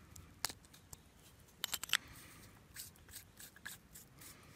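A plastic threaded hose coupling being screwed together by hand: sharp plastic clicks and rubbing, with a quick run of clicks just under halfway through.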